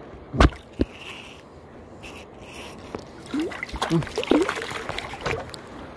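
Seawater sloshing and trickling, with a sharp knock about half a second in and a smaller one just after.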